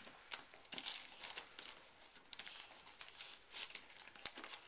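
Wrapping paper crinkling and tearing in irregular crackles as a dog chews and pulls at a gift-wrapped present.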